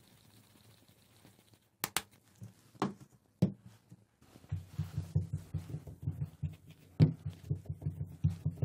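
A few sharp knocks as a plastic mixing bowl is moved aside on a wooden board, then hands patting and pressing a lump of wheat-flour biscuit dough flat, a quick run of soft thumps several times a second.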